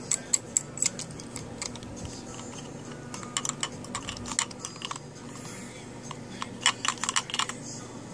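Cockatoo's beak clicking and knocking on a hard plastic toy truck in clusters of quick sharp taps: a few at the start, a group about three to four seconds in, and a fast run near the end.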